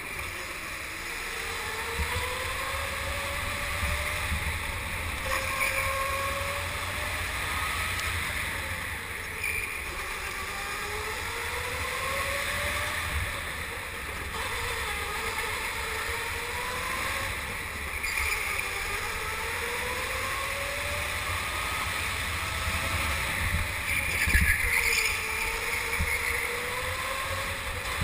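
Go-kart motor whine heard from on board, rising in pitch as the kart accelerates and dropping back as it slows, every few seconds, over a constant low rumble.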